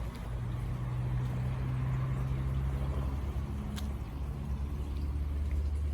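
Steady low mechanical hum, like an engine or motor running.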